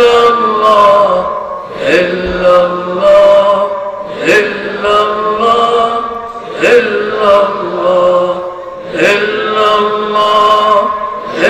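Sufi zikr chanting: a man's voice chanting a short phrase over and over. A new phrase comes about every two and a half seconds. Each one starts sharply and is held on a long tone that steps slowly down in pitch.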